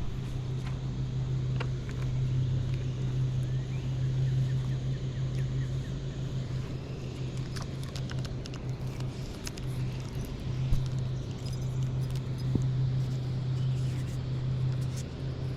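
A steady low mechanical hum that fades in the middle and comes back, with scattered light clicks.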